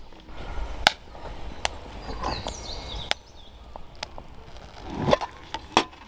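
Wood fire crackling with a few sharp pops, then a metal mess tin lid scraping and clinking near the end.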